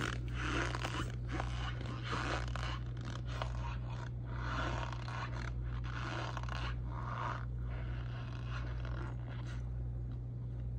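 A plastic spoon pressing and scraping through dry, crumbly powder in a plastic bowl: soft crunching strokes, roughly one a second, growing sparser near the end, over a steady low hum.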